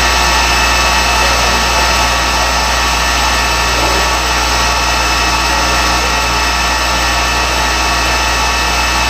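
SM Stahl robotic fettling machine running: a steady hum and whine of motors and spinning cut-off discs, with no cutting or grinding contact.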